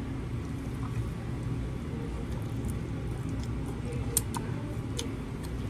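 A person eating pasta with a fork: quiet chewing, then a slurp of noodles with a few sharp clicks between about four and five seconds in. A steady low hum runs underneath.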